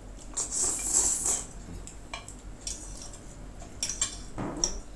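Noodles slurped off a fork for about a second, then metal forks scraping and clinking against a baking dish in short scattered clicks.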